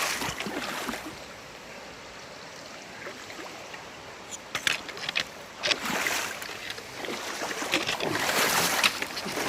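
A hiker wading through a shallow stream crossing, feet splashing in the water at irregular steps over the steady rush of the flowing stream. The splashes come in louder surges about halfway through and again near the end.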